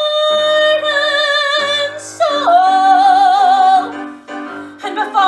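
A woman singing a musical-theatre solo over accompaniment. She holds one long steady note for about two seconds, then a second long note with wide vibrato. After a short breath, shorter notes start near the end.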